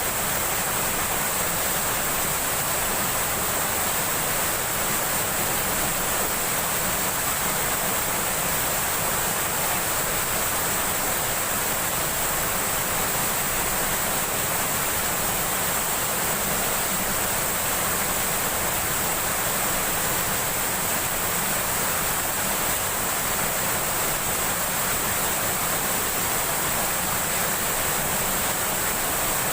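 Steady rushing of river water, an even, unchanging roar with no breaks.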